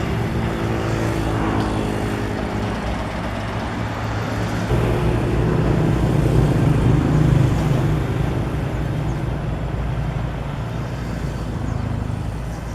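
Komatsu bulldozer's diesel engine running steadily, growing heavier and louder about five seconds in as it works, then easing off near the end.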